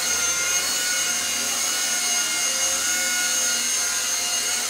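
Eachine E130 electric RC helicopter hovering: its motors and spinning rotor give a steady whine that holds one pitch.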